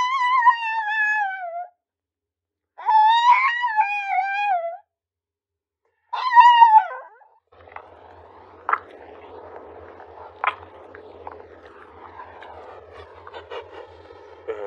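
Small tan dog howling: three long, high, wavering howls that fall in pitch, a few seconds apart. After them comes a quieter stretch with a few light clicks, and a husky starts to howl right at the end.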